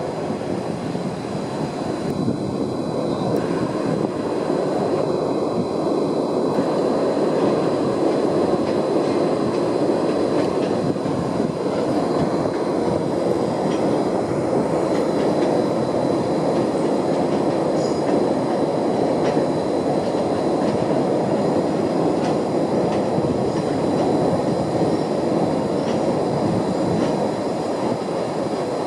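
Freight train hauled by an EF66 electric locomotive rolling past, a steady rumble of wagon wheels on the rails that swells over the first few seconds and then holds.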